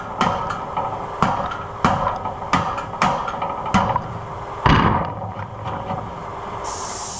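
Repeated hammer blows on metal, about one every half second to second, stopping about five seconds in.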